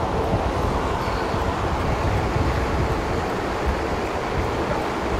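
Steady rushing, rumbling background noise with no distinct knocks.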